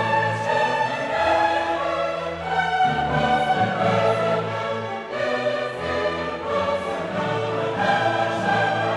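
Background classical music: a choir singing with an orchestra.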